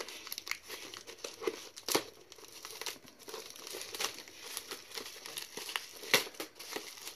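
White plastic mailer bag crinkling and tearing as it is cut and pulled open with scissors, a run of irregular crackles with the loudest about two seconds in.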